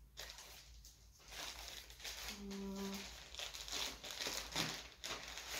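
Plastic mailer bag crinkling and rustling as a garment is pulled out of it, in irregular crackly bursts.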